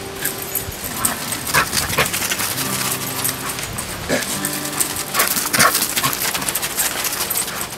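Dogs at play giving a scatter of short, sharp yips and barks, over background music.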